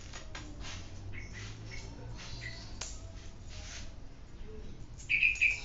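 Steel bicycle spokes clinking and rattling as they are picked up and threaded into a hub's flange holes, with light metal ticks throughout and one sharper click about three seconds in. Near the end come two short, loud, high squeaks.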